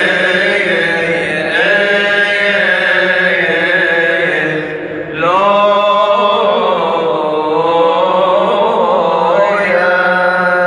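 Liturgical chanting at an Orthodox church service: voices sing long, slowly bending held notes over a steady low drone, pausing briefly about five seconds in before going on.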